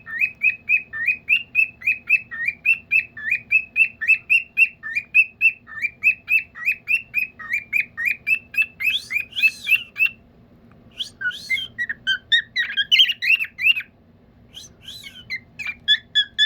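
A pet bird whistling a song: a long run of quick, repeated chirping whistles, about three a second, for around ten seconds. After a short pause come bursts of more varied chirps and whistles.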